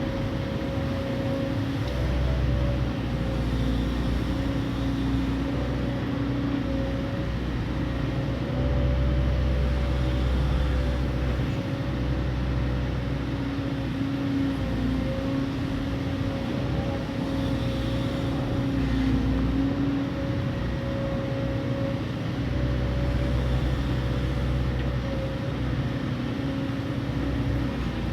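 Excavator's diesel engine running steadily while digging mud, with a steady hum and a low rumble that swells and eases every several seconds as the machine works.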